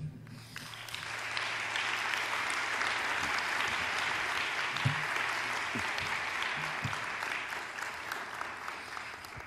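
Audience applauding: many hands clapping together, building over the first second, holding steady, then thinning out near the end.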